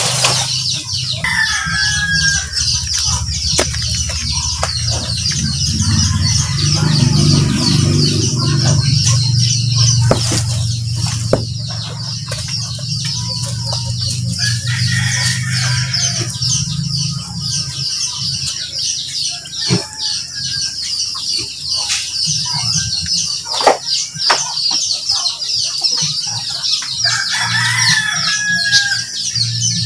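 Rooster crowing three times: about a second in, halfway through and near the end, over a steady, high, rapid trill.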